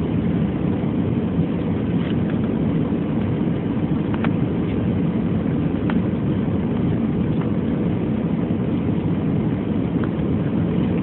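Steady low rumble of an airliner's engines and airflow heard inside the passenger cabin during the approach to landing, with a few faint ticks.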